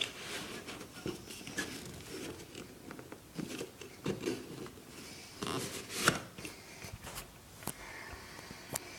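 Adjustable shoe trees being pushed into a pair of leather sneakers: scattered clicks and knocks with brief rustling, at irregular times.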